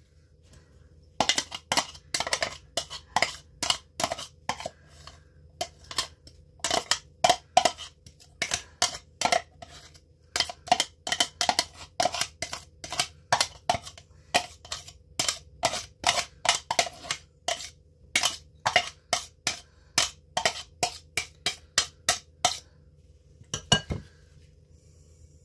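Repeated sharp clinks and knocks of a glass food-chopper bowl and utensil against a ceramic mixing bowl as chopped vegetables are tapped and scraped out, about two or three strikes a second, stopping a few seconds before the end.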